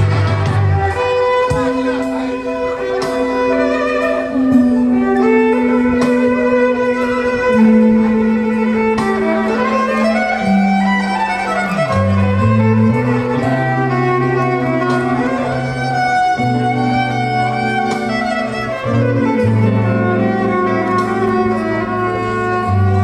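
Violin playing a slow, sustained melody over an accompaniment of long, low bass notes that change every couple of seconds.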